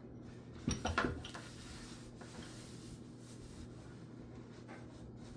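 A towel rubbed and wiped over an engine oil pan, a scrubbing that follows a short louder sound about a second in, over a low steady hum.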